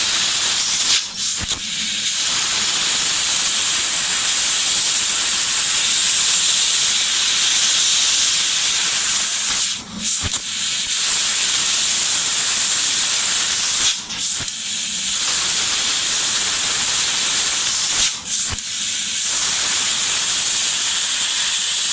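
Laser cutting machine running with a loud, steady hiss, broken four times by a brief drop with a short click.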